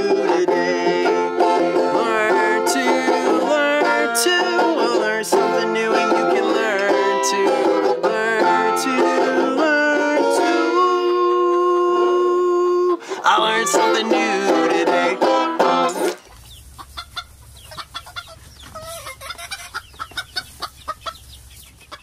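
Banjo played in a fast picked tune with a held chord near the middle, stopping abruptly about sixteen seconds in. After it, chickens clucking, much quieter.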